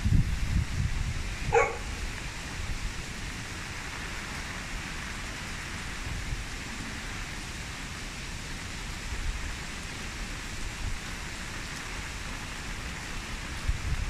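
Steady rain falling on garden foliage, a continuous even hiss. Low rumbling at the start fades within the first couple of seconds, and a single short animal call is heard about a second and a half in.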